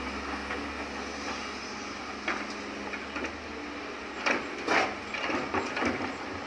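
Kobelco hydraulic excavator running steadily while it loads a dump truck, with a string of knocks and thuds from about two seconds in, loudest past the middle, as the bucket tips soil and stones into the truck's steel bed.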